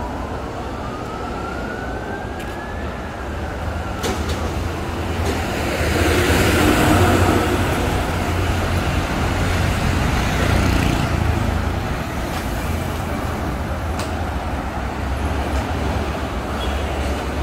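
Busy street traffic with engines running steadily, and one loud vehicle passing in the middle. In the first few seconds a whine rises in pitch and then falls away.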